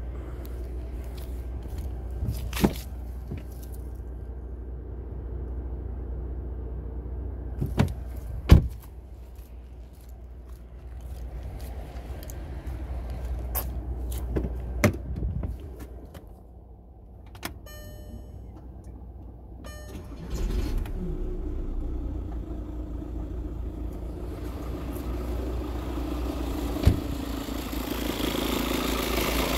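Skoda Octavia 2.0 TDI (BKD) four-cylinder diesel engine idling with a steady low rumble that grows louder in the last ten seconds. Four sharp knocks stand out over it, and there is a short run of quick ticks about halfway through.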